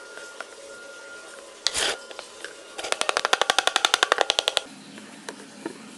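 A white foamy slime ingredient squirting from a bottle into a bowl: a short gush, then a rapid sputtering rattle of pops, about ten a second, for nearly two seconds.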